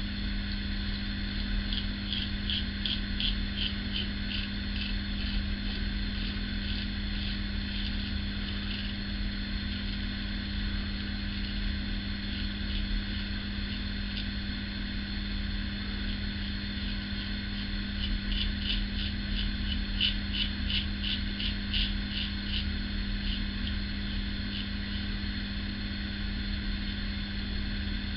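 Single-edge safety razor scraping through stubble in two runs of quick short strokes, a couple of seconds in and again past the middle, over a steady low hum.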